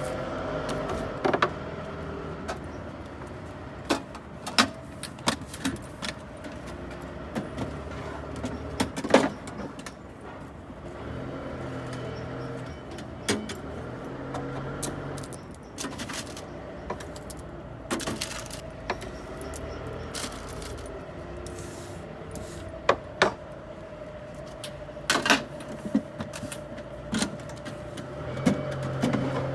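Sharp clinks and knocks of cups and coffee gear being handled at a coffee van, a dozen or so scattered through, over a steady background hum, with low engine rumble of passing traffic coming and going.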